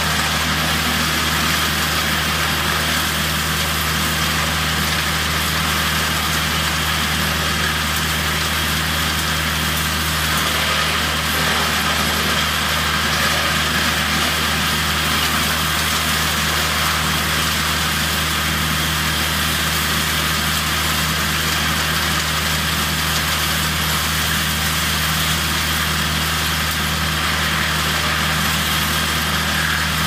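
Diesel-engined disc-type wood chipper running steadily at constant speed while leafy branches are fed through it: a steady engine drone with a constant higher hum over it, with no change in load.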